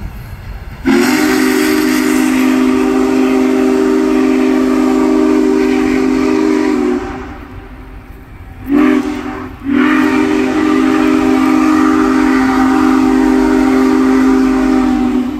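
Union Pacific Big Boy 4014 steam locomotive's whistle blowing several low notes together, with steam hiss over them. It gives a long blast of about six seconds, a short toot, then another long blast.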